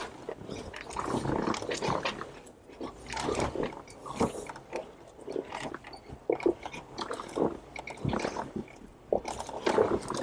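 Jeep crawling slowly over rocks: tires crunching and grinding on stone, with irregular knocks and scrapes from the underside and creaks from the chassis.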